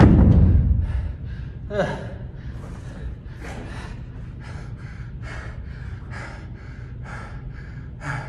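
A pair of heavy dumbbells set down hard on a rubber gym floor with a low thud, then a man's hard, rapid panting from exertion, about two breaths a second, with one louder gasp about two seconds in.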